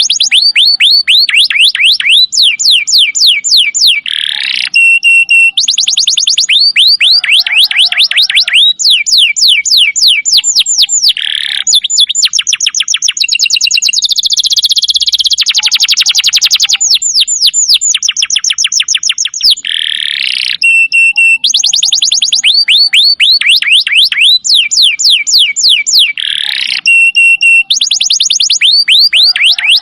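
Domestic canary singing a loud, continuous song of rapid trills, each phrase a fast run of repeated descending notes, changing from one phrase to the next every few seconds.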